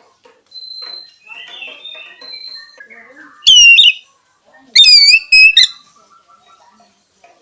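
Oriental magpie-robin (kacer) singing: quiet, varied twittering and warbles, then much louder, clear whistled notes about halfway through, with a quick run of several more loud notes shortly after.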